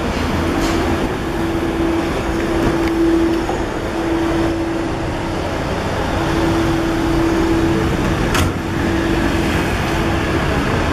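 City street traffic noise: a steady rumble of cars and engines, with a low steady hum that breaks off now and then and a single sharp click about eight seconds in.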